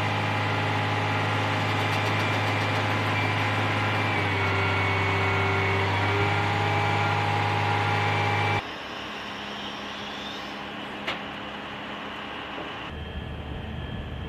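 Heavy military crane truck's diesel engine running steadily, with several high whines held over it. It cuts off abruptly about eight and a half seconds in, leaving a quieter steady background with a single click a couple of seconds later.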